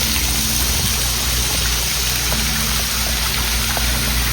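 Steady rush of running water from small waterfalls, with a constant low rumble underneath.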